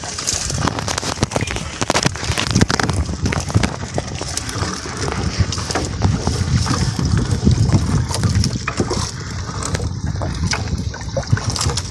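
Fishing net being hauled in by hand over the side of a small outrigger boat: scattered clicks and rustling over a steady low rumble.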